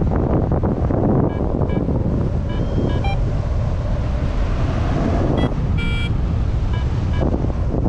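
Wind buffeting the camera microphone of a paraglider in flight: a loud, steady, gusty rumble. A few short high beeps sound over it, the longest about five and a half seconds in.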